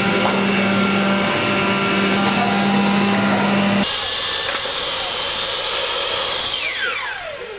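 A handheld electric power tool runs steadily with a motor hum on a wood panel. About four seconds in, it gives way to a sliding compound miter saw cutting a board. Near the end the saw's motor winds down in a long falling whine after the trigger is released.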